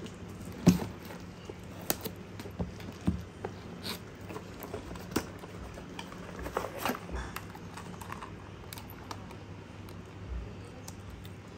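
Unpacking a toy: scissors cutting open a cardboard toy box, then a plastic toy car being pulled out and handled. The sound is scattered light clicks and crinkles, the sharpest under a second in.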